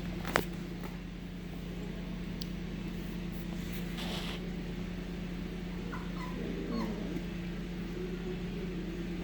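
Sheepadoodle puppies giving a few short, high whimpers over a steady low hum, with a sharp click just after the start.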